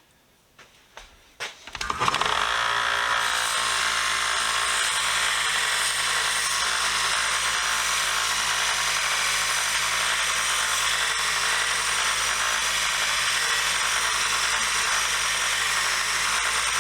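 A 1x30 belt sander starts about two seconds in and then runs steadily, with the hiss of a steel breaker bar being ground on the belt to take out dents and imperfections. The sound cuts off suddenly at the end.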